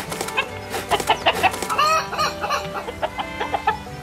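Chickens clucking in quick, short calls, with a louder run of squawks about two seconds in.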